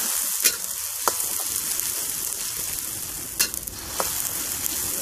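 Blended rendang spice paste (galangal, ginger, chilli, shallots, garlic, lemongrass) sizzling in hot oil in a steel wok, the first frying of the paste. It is stirred with a metal spatula that scrapes and clicks against the wok a few times.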